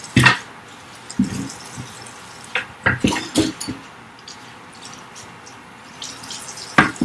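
Water splashing in a kitchen sink as items are washed and rinsed, with irregular splashes and knocks, the loudest near the end.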